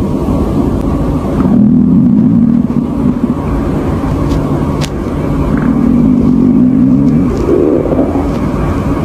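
Human stomach growling: long, low rumbles in several stretches, with a higher, rising gurgle near the end.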